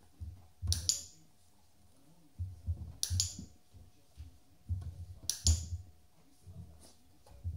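A dog-training clicker clicking three times, about two and a half seconds apart, with soft low thuds from the dog moving about around each click. Each click marks the dog taking hold of the tug toy.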